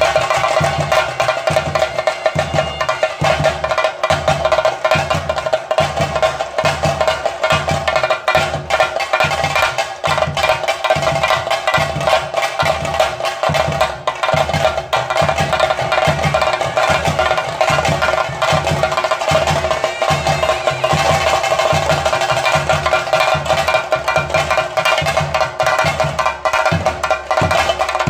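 Chenda drums beaten in a steady, fast rhythm, Kerala temple percussion accompanying theyyam, with a sustained ringing tone over the drumming.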